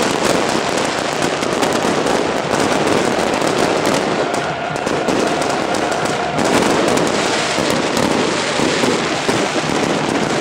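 Aerial fireworks and firecrackers going off continuously, a dense string of rapid crackles and pops.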